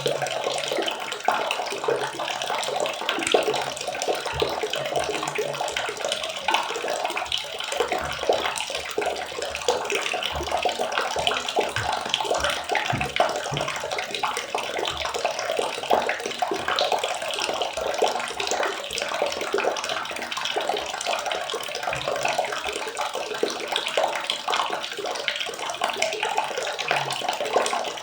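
Water running and splashing steadily, a dense crackling wash with scattered soft low thumps.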